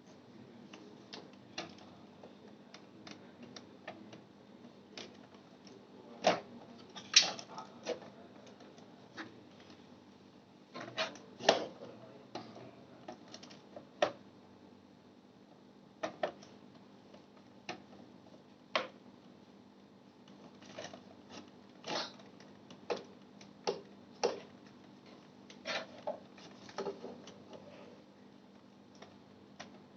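Irregular clicks and knocks of small computer parts being handled, some louder than others, over a steady low hum.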